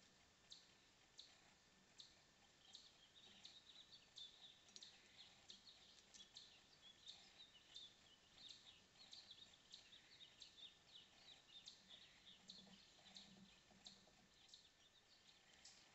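Faint, quick high chirps and ticks of small birds, several a second at times, over a quiet outdoor background.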